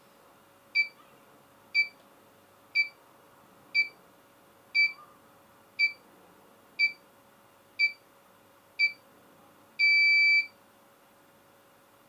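Wireless GSM home alarm control panel beeping as it is armed: nine short beeps about a second apart, then one longer beep near the end.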